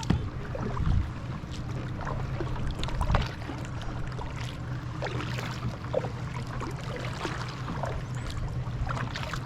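Kayak paddling: the paddle blades dip and splash, and water drips and trickles off them, over a steady low hum. A few low bumps come near the start and about three seconds in.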